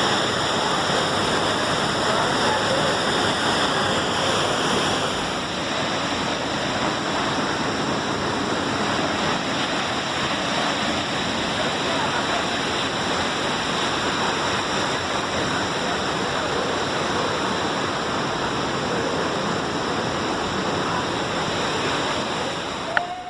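Waterfall: a loud, steady rush of falling water that dips a little about five seconds in and cuts off abruptly near the end.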